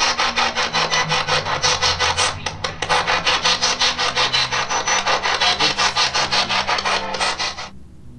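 Spirit box sweeping through radio frequencies, giving a fast, even pulsing of static several times a second. It cuts off suddenly near the end.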